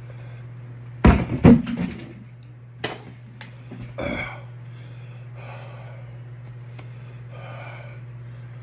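A man breathing hard through an open mouth, with two loud harsh throat sounds about a second in and another short one around four seconds, then slow heavy exhales: a reaction to the burn of superhot chocolate primotalli peppers. A steady low hum runs underneath.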